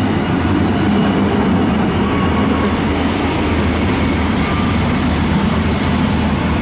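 EN57AL electric multiple unit rolling past along the platform, with a steady rumble of wheels on rail and a low electric hum.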